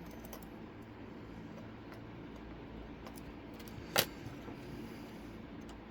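Small faint clicks of a lock pick working the pin stack inside an Elzett lock, with one sharp click about four seconds in, over a low steady hum.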